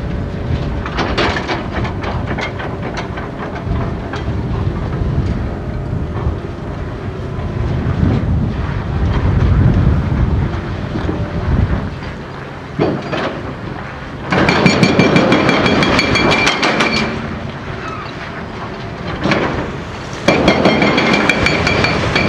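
Heavy diesel truck engine rumbling as a loaded low-loader semi-trailer pulls across the yard. After that come two long stretches of loud metallic screeching and clanking, about two seconds each, from an excavator working on the concrete and steel of the bridge span.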